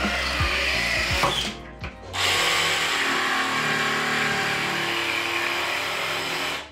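A cordless drill running a hole saw through a melamine-faced cabinet panel. About two seconds in, a cordless jigsaw starts cutting out the board between two bored holes. It runs steadily and stops just before the end.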